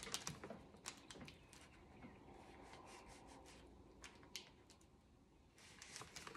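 Near silence with faint, scattered crinkles and light ticks from a deco mesh petal being handled. They are thickest in the first second and a half, with one sharper tick about four seconds in.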